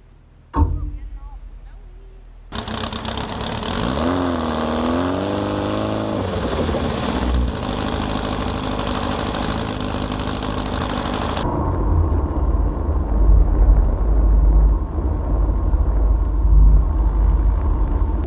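Vintage VW's air-cooled flat-four engine running as the vehicle drives on snow, with a sharp knock about half a second in. The pitch rises and falls for a couple of seconds around the middle, then settles into a steady low rumble in the last part.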